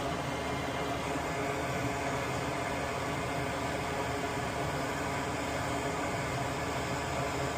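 A small fan running steadily, a constant whir with an even hiss, unchanging throughout.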